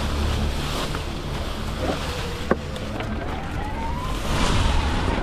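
Wind rumbling and hissing over an action camera's microphone, with a faint whine rising in pitch through the middle and one sharp click about two and a half seconds in.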